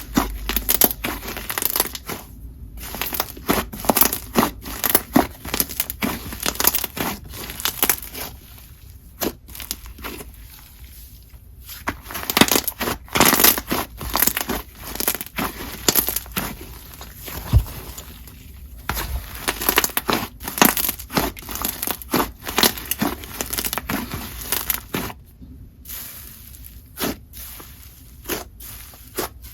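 Slime being mixed by hand, a clay fizz slime whose clay cookie is infused with snow fizz, crackling and crunching in dense, irregular clicks with short pauses.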